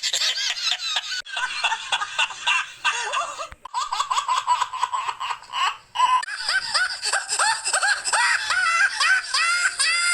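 Stock laughter sound effect: high-pitched giggling and laughing in quick repeated bursts, spliced from several short clips with abrupt cuts about a second, three and a half and six seconds in.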